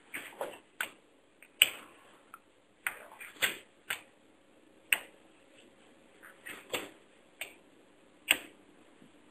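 Irregular sharp clicks and taps, about a dozen, unevenly spaced, over faint background.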